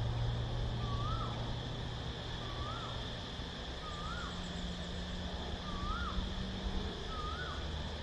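A bird repeats a short whistled call that dips and then rises, five times at about one-and-a-half-second intervals. Under it, cicadas keep up a steady high drone, and there is a constant low hum.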